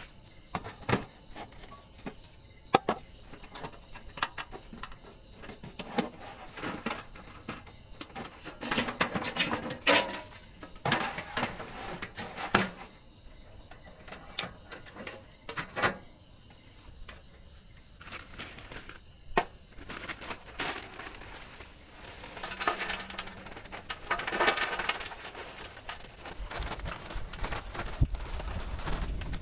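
Irregular sharp knocks and clicks with stretches of rough rustling or scraping, a few knocks much louder than the rest; a low rumble comes in near the end.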